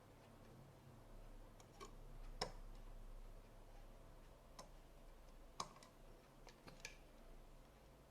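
A few faint, sharp clicks and taps of small hard objects being handled, about half a dozen spread unevenly, the loudest two about two and a half and five and a half seconds in, over near silence.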